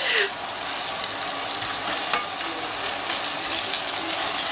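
Chopped onions sizzling in oil in a frying pan, stirred with a plastic spatula that makes a few light scrapes against the pan.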